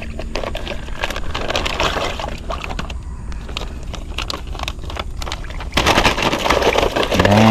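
Close handling noise: rustling and scraping with irregular clicks, denser and louder from about six seconds in.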